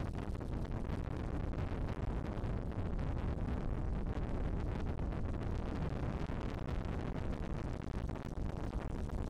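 Wind buffeting the microphone aboard a motorboat under way on open water: a steady, low rush of air without a break.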